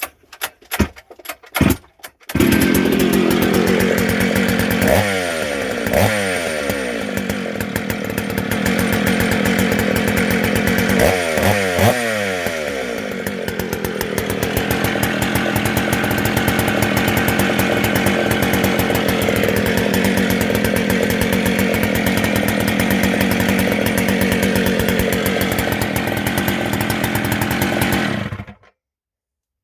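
Dolmar 153 two-stroke chainsaw engine after an ignition rebuild, its timing a couple of degrees advanced by the owner's account: a few short sharp pops, then it starts about two seconds in and idles. It is blipped twice in quick succession about five seconds in and again about eleven seconds in, the revs falling back to idle each time, and near the end it is switched off and stops suddenly.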